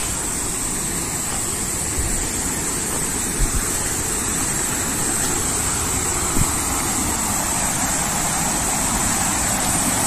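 Steady rushing of a waterfall and its stream, growing a little louder toward the end, with a few soft thumps of footsteps on a muddy trail.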